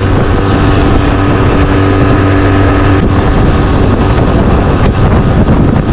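A boat's outboard motor running steadily at speed, with water rushing along the hull.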